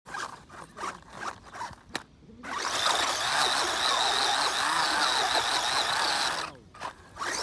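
JJRC Q46 RC car's electric 540 motor and gear drivetrain whirring in short throttle bursts, then running hard for about four seconds with its pitch wavering as the car climbs a curb. It cuts off suddenly near the end.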